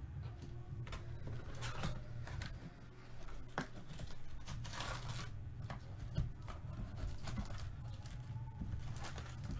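A cardboard trading-card hobby box being opened and its foil card packs handled: irregular rustling, crinkling and scraping strokes, over a low steady hum.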